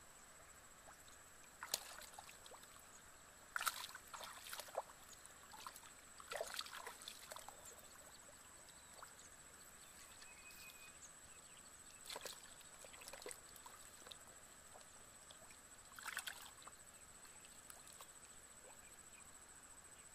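Hands splashing and sloshing in shallow muddy water, in short scattered bursts separated by quiet stretches, over a faint hiss with a steady high-pitched tone.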